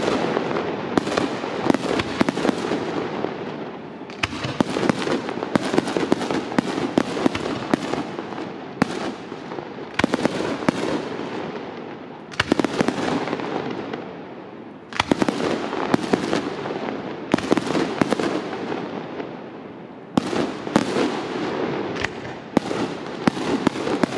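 Aerial fireworks display going off in waves every few seconds. Each wave is a rapid volley of sharp bangs and cracks that fades away before the next one starts.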